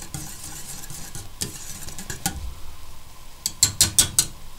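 A whisk stirring a thickening flour-based sauce in a stainless steel pot as it comes to the boil, scraping and clicking against the metal. Near the end comes a quick run of about six sharper clicks.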